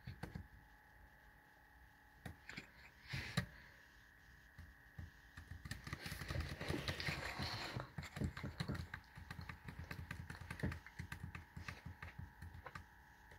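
Typing on a keyboard: irregular clicks of keys being pressed, sparse at first, then denser and louder from about six seconds in.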